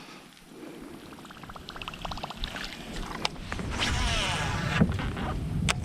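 Water moving around a kayak hull and wind on the microphone, growing gradually louder, with a few sharp clicks.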